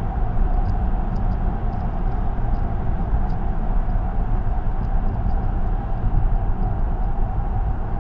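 Steady tyre and road noise of a car cruising on an expressway, a low rumble heard from inside the cabin, with faint light ticks now and then.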